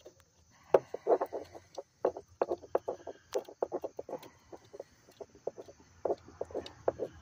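Hand ratchet on a socket extension clicking in short irregular runs as a mounting bolt of the intake rocker arm control solenoid valve is backed out.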